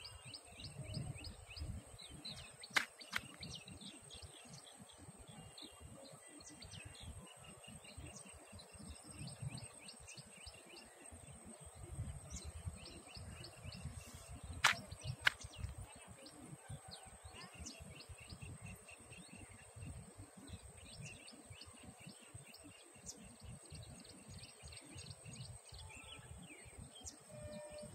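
Many small birds chirping continuously, over a gusty low rumble of wind on the microphone. A few sharp clicks come in two pairs, about three and fifteen seconds in.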